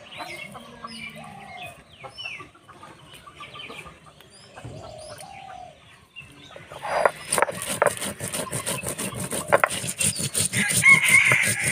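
A stone roller is worked back and forth over a flat grinding stone (shil-nora), crushing cumin and coriander seeds in rapid, rhythmic scraping strokes that start about halfway in. Before that, seeds are spread by hand while birds call in the background.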